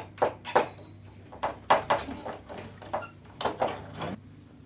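Irregular short knocks and clatter, a dozen or so, over a steady low hum.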